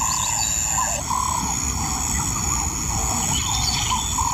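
Bush ambience: a bird repeating a short whistled note about twice a second over a steady high-pitched insect drone.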